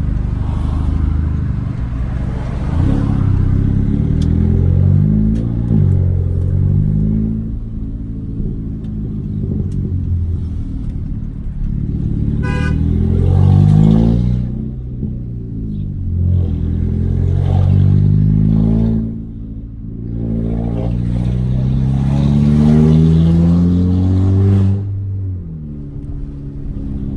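Audi A3's turbocharged TFSI engine through a downpipe and 2.5-inch straight pipe, running loud with its revs climbing and dropping back again and again.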